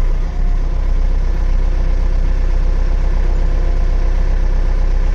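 Compact tractor engine running steadily at idle while the front loader's hydraulics raise the bucket.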